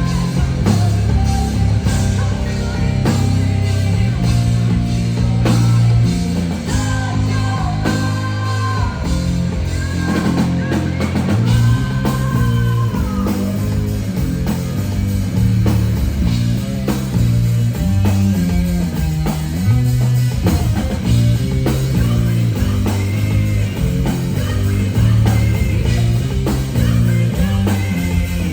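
Rock band playing live: electric guitar and drum kit over a stepping bass line, loud and steady.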